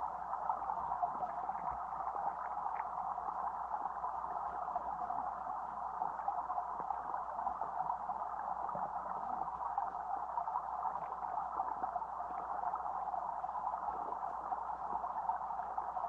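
Stream water flowing, heard from underwater: a steady, muffled hiss with a few faint ticks.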